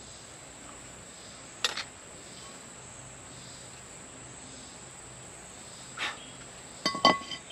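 Steady high-pitched drone of insects, broken by a few sharp clinks and knocks of cast iron cookware being handled: one about two seconds in, another about six seconds in, and a quick cluster near the end.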